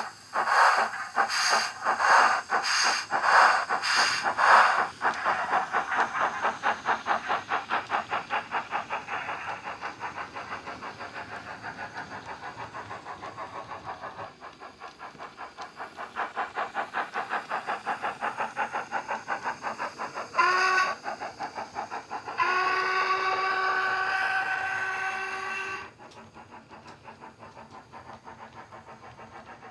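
Digital steam sound of a Hornby 8F model locomotive (Wheeltappers DCC sound file), played through its small 25x25x7 mm megabass speaker. Loud chuffs with a hiss on each beat over the first few seconds give way to quicker, softer exhaust beats. About two-thirds through comes a short whistle blast, then a longer steady whistle lasting about three seconds, after which quieter chuffing runs on.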